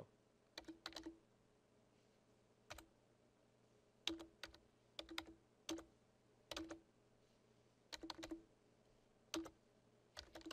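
Faint computer keyboard typing: single keystrokes and short runs of two or three keys, irregularly spaced, with pauses of up to about a second between them.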